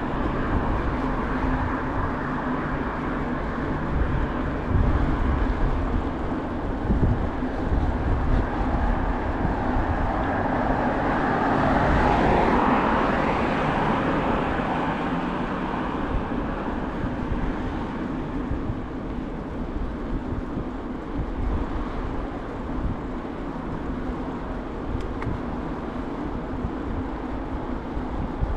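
Wind buffeting the microphone and tyre noise from a bicycle rolling along a city road, over the hum of car traffic. A car passes close by, growing louder and fading about twelve seconds in.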